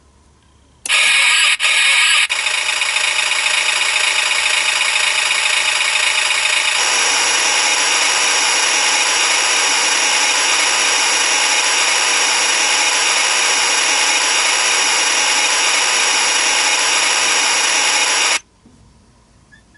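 Synthesized truck engine sound effect from a sound-effect IC kit: a short harsh burst about a second in, then a steady, coarse, noisy running sound that changes character about seven seconds in and cuts off suddenly near the end.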